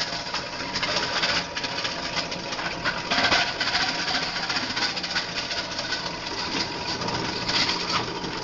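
A model 6508 plastic granulator grinding plastic petri dishes: a dense, continuous clatter and crackle of plastic pieces being chopped and thrown around the cutting chamber.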